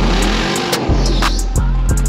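Music with a heavy, sustained bass line and sharp, regular drum hits.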